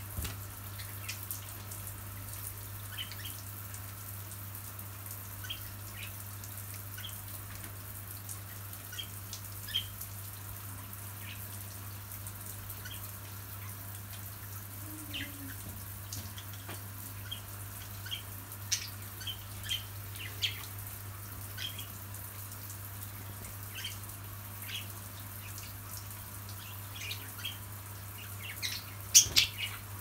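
Water from a shower spraying with a steady hiss while budgerigars chirp briefly and often, with a louder burst of chirps near the end.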